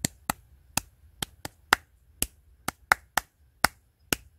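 Hands clapping a rhythm of quarter and eighth notes at a steady pulse of about two beats a second. Single claps alternate with pairs of quicker claps, about a dozen sharp claps in all.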